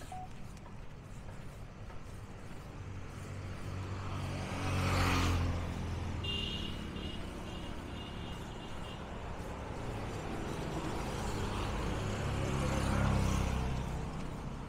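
Roadside traffic: motor vehicles pass close by, swelling and fading twice, the first about five seconds in and the second near the end, each with a low engine rumble over tyre noise. A short run of high, evenly repeated pips sounds just after the first vehicle passes.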